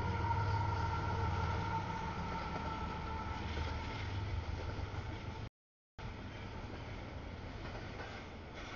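CSX double-stack intermodal freight train passing, with the low rumble of a mid-train diesel locomotive and a steady high whine that sinks slightly in pitch over the first few seconds. The sound drops out for about half a second a little past the middle.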